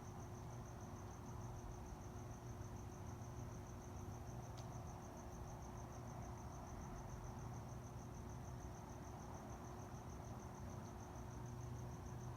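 Cricket chirping steadily at night, a fast, even, unbroken train of high chirps, with a faint steady hum and low background noise behind it.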